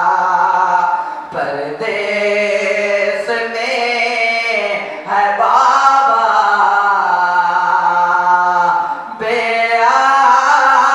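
A young man reciting a noha, a Shia mourning lament, solo and unaccompanied, in long held notes. There are short breaks between phrases about a second in, around the middle and near the end.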